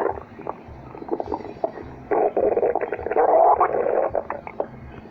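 A stomach growling and gurgling, with irregular squelchy pops, swelling into a louder, longer rumble from about two seconds in until just past four.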